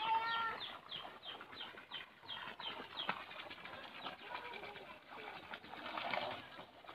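A bird chirping in a quick series of short, high, falling notes, about three a second, fading out about halfway through; a longer wavering call sounds at the very start.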